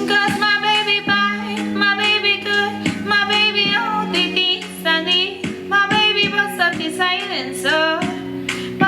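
A cappella vocal group of young singers performing a song in harmony, several voices moving over sustained low held notes, with short percussive clicks keeping time.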